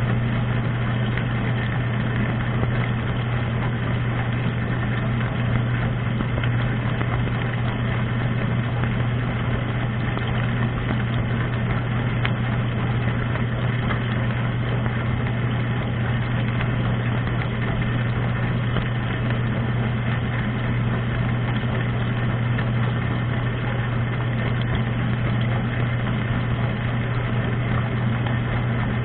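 Dishwasher running, heard from inside the tub: the wash pump motor's steady hum under an even rush of spraying water.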